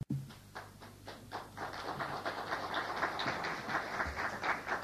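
Rapid, uneven series of sharp taps, several a second, growing denser and louder about a second and a half in.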